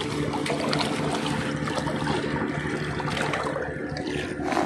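Sea water lapping and sloshing against shoreline rocks, with a faint steady low hum underneath.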